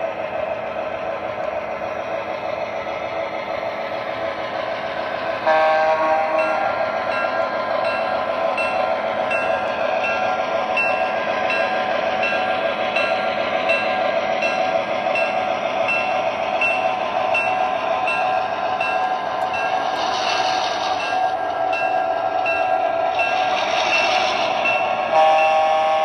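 Onboard sound system of an MTH Premier O-gauge New York Central E8 diesel model running: a steady recorded diesel engine drone, with a horn blast about five seconds in and again near the end. In between, a short ding repeats about twice a second for several seconds.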